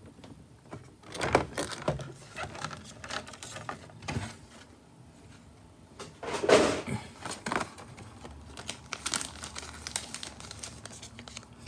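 Clear plastic packaging of a trading-card box being crinkled and handled in irregular bursts, with some tearing. The loudest crackle comes about six and a half seconds in.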